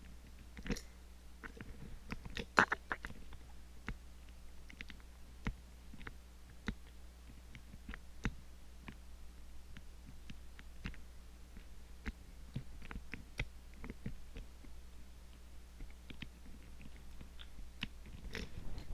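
Lock pick working the levers inside an Ingersoll 10-lever padlock: irregular small clicks and scrapes of metal on metal, the loudest a couple of seconds in.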